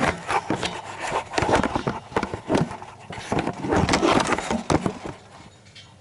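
A tight oil filler cap on a tractor engine being worked loose by hand: irregular scrapes, clicks and knocks that stop about five seconds in.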